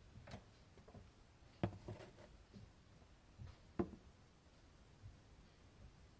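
A handful of light clicks and knocks from the parts of an old refrigerator being handled, each short and sharp. The loudest come about a second and a half in and just before four seconds.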